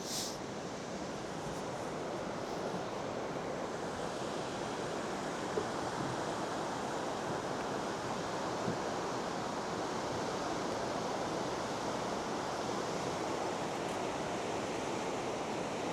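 Steady outdoor rushing noise, even and unbroken, with a brief hiss right at the start.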